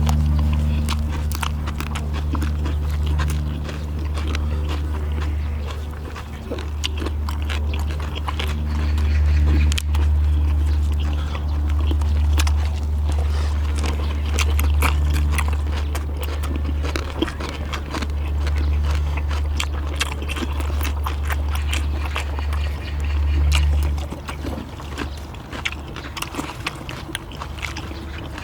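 Close-up eating sounds: chewing and biting with many small clicks and knocks of utensils, over a steady low hum that drops away near the end.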